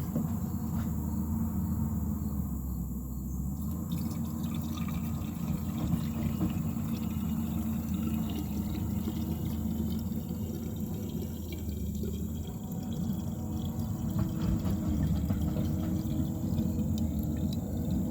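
Fuel pouring steadily from a can into a chainsaw's fuel tank as the tank is refilled.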